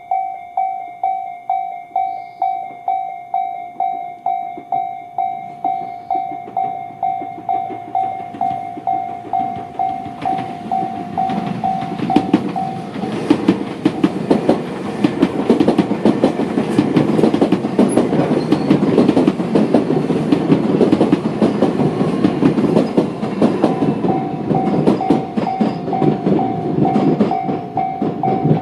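Japanese level-crossing alarm bell (Tobu's electronic 'sound C' bell) ringing at about two strokes a second, then a Tobu 500 series electric train passes at the crossing, its wheels clattering over the rail joints. The bell is drowned out by the train for several seconds, is heard again near the end, and stops as the train clears.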